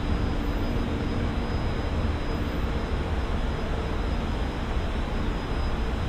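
Steady road traffic noise from a busy elevated highway: a continuous rumble of passing cars and trucks. A faint steady hum fades out about halfway through.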